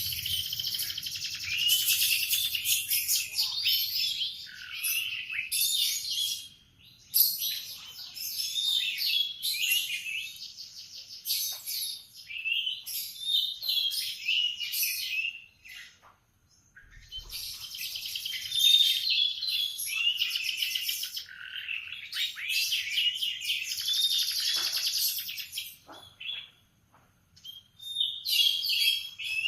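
Domestic canary singing: long bouts of rapid trills and warbles, broken by a few short pauses.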